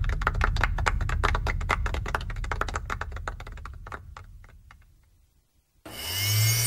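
Applause from a small audience, a dense patter of claps that fades away over about four seconds. Near the end, electronic music with sweeping tones comes in.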